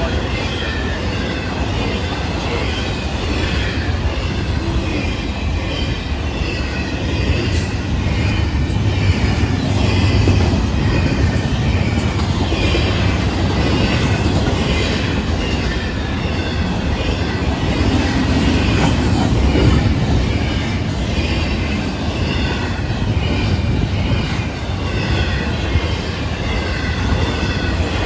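Freight train cars loaded with double-stacked containers and highway trailers rolling steadily past, a low rumble of steel wheels on rail. A high, slightly wavering squeal from the wheels runs over it.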